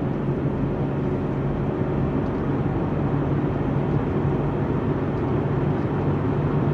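Steady noise of a car driving: a low engine hum under an even rush of road noise.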